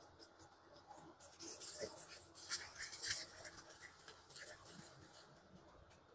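Fingers working a thick banana-and-mayonnaise conditioner through a child's hair: soft, scratchy rubbing strokes, loudest between one and three seconds in, then fading.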